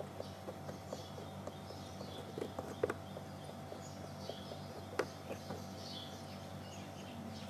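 Quiet hand work on a plastic kayak hull: scattered small clicks and taps, the sharpest just before 3 seconds and at 5 seconds. Faint bird chirps and a low steady hum sit underneath.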